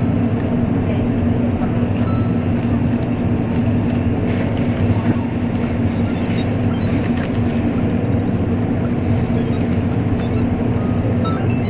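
Steady running noise of an N700 series Shinkansen heard inside the passenger car: an even rumble with a steady low hum.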